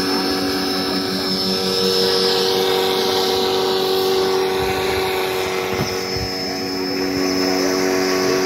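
Homemade model air boat's propeller motor running at a steady, even pitch as the boat cruises across the water.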